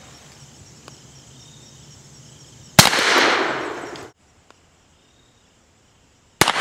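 Two shots from a Webley Mk VI revolver firing .45 Auto Rim handloads (255-grain bullets over 7.0 grains of Blue Dot), about three and a half seconds apart, each followed by an echo that dies away. The first shot is the loudest sound, and its echo cuts off suddenly; the second shot comes at the very end.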